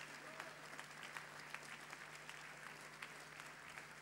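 Faint, steady audience applause: many scattered hand claps blending into an even patter.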